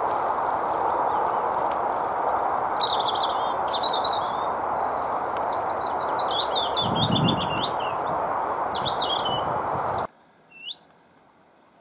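A leaf warbler singing short phrases of quick, high notes, several of them tumbling downward, over a steady rushing background noise. Near the end the background noise cuts off abruptly and a single faint rising call note follows.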